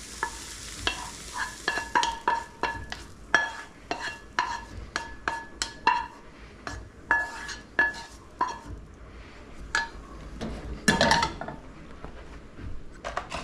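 A spatula scraping and knocking sautéed vegetables out of a stainless steel skillet into a metal mixing bowl: a run of sharp metallic clinks, about two a second, each with a short ringing tone. A louder clank comes near the end.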